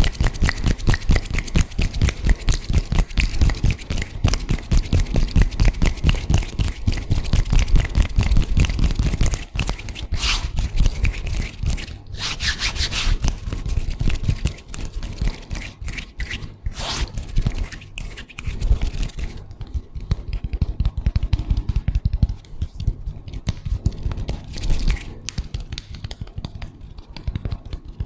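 Hands rubbing and brushing together close to the microphone in quick, repeated strokes, lighter and softer in the last third.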